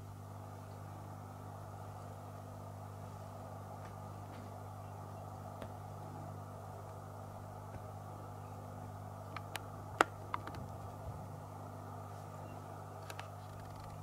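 A steady low hum, with a quick cluster of sharp clicks about ten seconds in, one much louder than the rest, and two faint ticks near the end.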